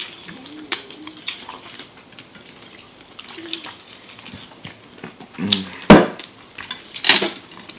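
Close-up eating noises: chewing and biting into fried chicken wings amid scattered small clicks and rustles, with a loud sharp knock about six seconds in and another clatter about a second later.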